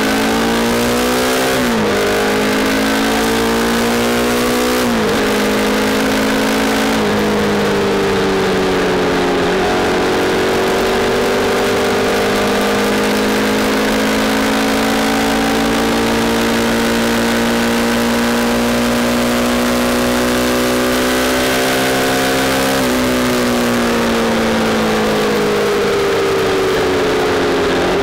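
Dirt bike engine heard from a mount on the bike, revving up and shifting up through the gears, with the pitch climbing and dropping about three times in the first seven seconds. It then holds a steady cruising note and eases off near the end, the pitch falling slowly. A steady rush of wind noise runs underneath.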